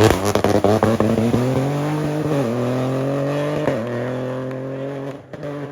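A WRC rally car's engine passes close and accelerates away through the gears: the pitch drops as it goes by, then climbs, dipping at upshifts about two and a half and three and a half seconds in, as the car fades into the distance. Sharp cracks sound within the first second.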